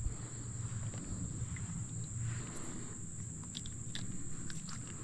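A steady high-pitched insect drone, with scattered light clicks and rustles from about halfway in as a fish is unhooked by hand.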